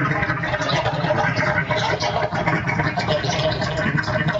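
Radio Specter ghost box rapidly sweeping the AM band: a steady, choppy stream of radio static broken by split-second fragments of stations.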